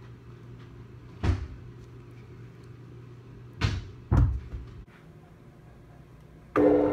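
A few dull thumps, then near the end a drum-kit cymbal hit by a tennis ball in a golf trick shot, ringing on with several steady pitches.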